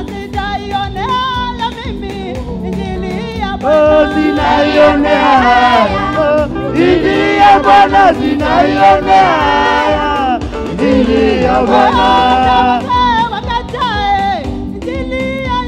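Gospel praise team singing a Swahili worship song into microphones over instrumental backing with a steady beat; more voices join and the singing grows louder about four seconds in.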